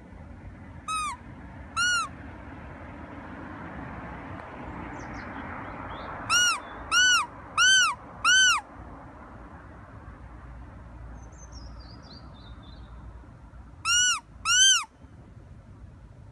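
Fox Call predator whistle blown in short squeals that rise and fall in pitch: two, then four in quick succession, then two more near the end. The call is blown to lure foxes.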